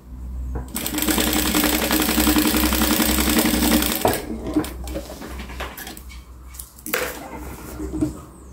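Industrial straight-stitch sewing machine running at steady speed for about three seconds as a seam is stitched, a fast even stitching rhythm over a hum, then stopping. Quieter rustling of fabric being moved follows, with a sharp click near the end.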